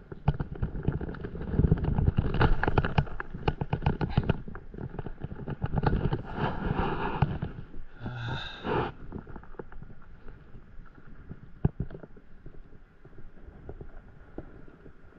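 Dense, irregular crackling and knocking, heaviest in the first eight seconds, with a short harsher rasp about eight seconds in, then only scattered knocks over a low hiss.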